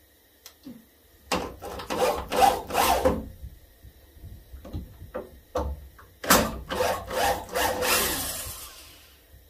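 Cordless drill backing screws out of a deer antler skull cap mounted on a foam form: the drill grinds the screws out in two long spells, about a second in and again around six seconds in, with small clicks and rattles between them.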